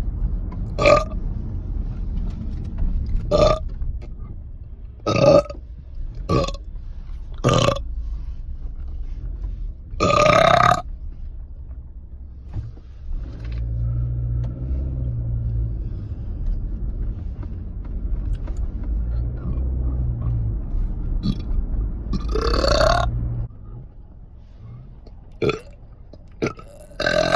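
A person burping over and over: about ten separate burps, mostly short, with two longer, drawn-out ones about ten seconds in and about twenty-two seconds in. A steady low rumble runs underneath, louder through the middle stretch.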